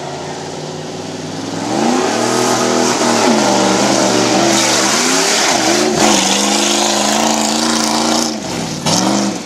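Off-road SUV's engine revving hard, pitch rising and falling several times with brief drops between runs, over the gritty noise of the truck tearing across a dirt course. Its exhaust is hanging loose.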